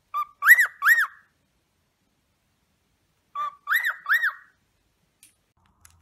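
Male cockatiel singing: two identical whistled phrases about three seconds apart. Each phrase is a short low note followed by two quick whistles that rise and fall.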